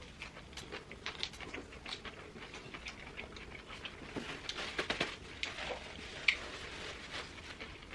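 Eating sounds close to the microphone: chewing on a burger and fries, with small irregular clicks and crackles and one sharp click about six seconds in.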